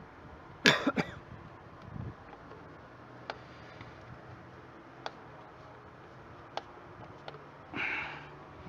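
Clicks and knocks of tools and parts being handled while a car radiator is fitted and bolted in: a sharp clatter about a second in, a dull knock, a few single ticks, and a short rustle near the end.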